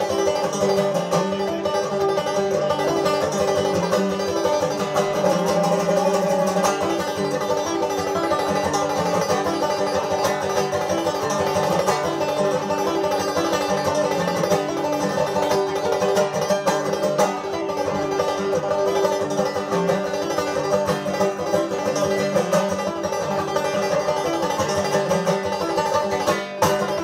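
Solo banjo played clawhammer style: a lively Scottish tune of quick, continuous plucked notes over steady ringing strings.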